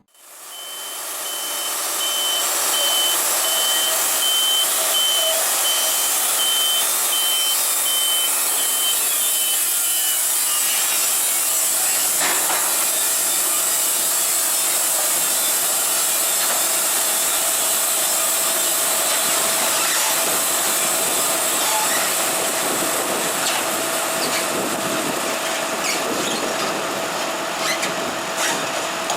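Wood-Mizer LT70 band sawmill running with a steady high-pitched hiss, typical of the band blade cutting through a log. A series of electronic beeps sounds over it for about the first ten seconds, and a few faint knocks come later.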